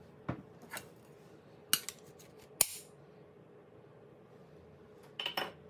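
A few sharp clinks and taps of a stainless steel cup and spatula against a steel pan and a ceramic plate as moulded fried rice is turned out. The two loudest come near the middle, with a quick pair of taps near the end, over a faint steady hum.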